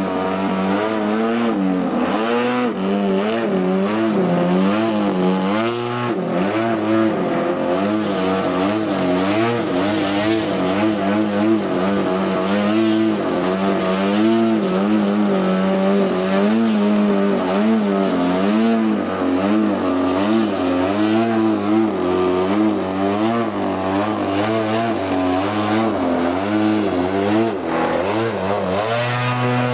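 30cc two-stroke gas engine and propeller of an RC aerobatic plane (EG Aircraft MX2) running hard. Its pitch rises and falls every second or so as the throttle is worked to hold the plane in nose-up hovers and tail touches.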